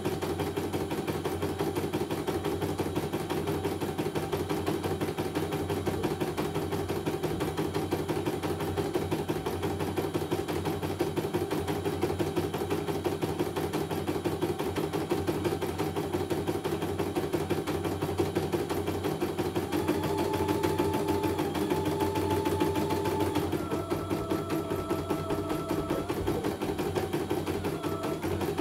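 CNY computerized embroidery machine stitching a design, its needle going up and down in a fast steady rhythm as the hoop carriage moves. A thin motor whine underneath steps up in pitch about two-thirds of the way through and changes again a few seconds later.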